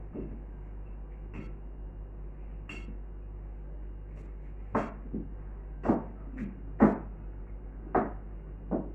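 Wooden rolling pin rolling out bread dough on a metal tray, with irregular knocks and clatters, a few at first and then several close together in the second half, the loudest about two-thirds of the way through. A steady low hum runs underneath.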